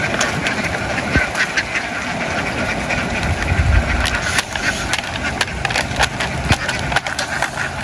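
A large flock of domestic ducks quacking all at once, a dense continuous din of overlapping calls.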